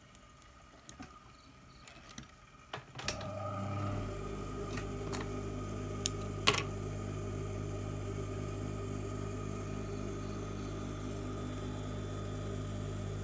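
Electric sewing machine stitching a side seam. A few light handling clicks, then about three seconds in the machine starts and runs at a steady speed with a fast, even stitching rhythm over its motor hum, with two sharp clicks around six seconds in.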